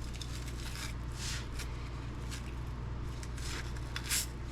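A handful of short scratchy rubbing strokes, as dust and husky fur are brushed off the insides of a dismantled hair appliance, over a steady low hum.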